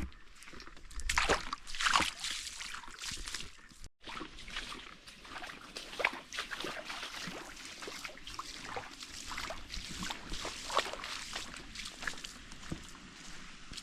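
Creek water trickling and splashing over a small dam, a busy run of irregular little splashes, with a short break about four seconds in.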